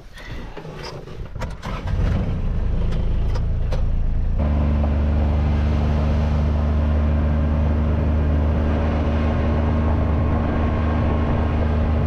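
A few small clicks and knocks, then about two seconds in the engine of a farm utility vehicle comes on loud and low. From about four seconds it runs steadily at an even pitch as the vehicle drives.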